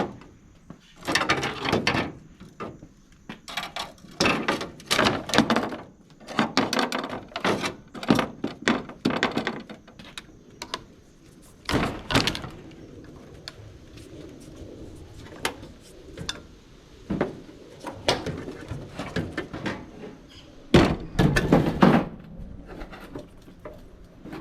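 Copper refrigerant tubing being cut and wrenched off a PTAC's compressor: irregular metal clanks, snaps and short scraping crunches, with one heavier, deeper clunk near the end.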